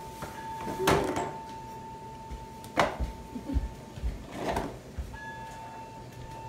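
Plastic ride-on toy car knocking and thudding as a toddler rolls it over a doorway threshold onto a tile floor: a few sharp knocks and some low bumps, over a faint steady high tone.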